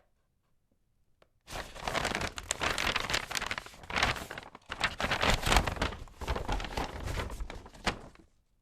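Paper bag crinkling and rustling as it is handled. It starts about a second and a half in, runs in dense crackly bursts with a brief pause about halfway, and stops shortly before the end.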